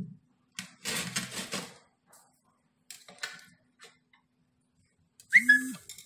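Polished granite sign plates handled on a granite slab: a hard knock as a plate is set down, then a scraping slide of stone over stone and a few light clicks. Near the end comes the loudest sound, a short high-pitched cry.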